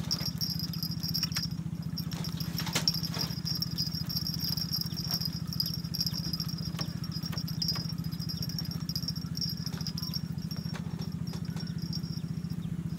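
A steady low hum with a fine rapid pulse runs throughout, alongside a steady high-pitched whine. Over it come scattered light clicks and rattles from a spinning reel being cranked to bring in a hooked fish.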